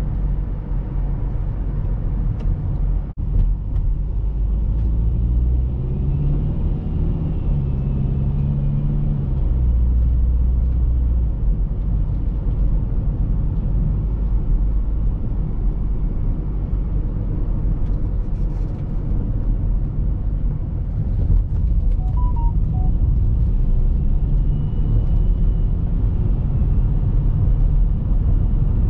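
Cabin sound of a BMW X3 F25 driving, powered by its 2.0-litre four-cylinder diesel with automatic gearbox: a steady low drone of engine and road rumble. The engine note climbs and drops in steps about six to nine seconds in.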